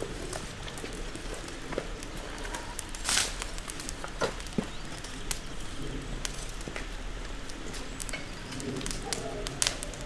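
Scattered light clicks and knocks of handling at a table, then footsteps on paving, over a steady outdoor background with a low hum; a short rustle about three seconds in is the loudest moment.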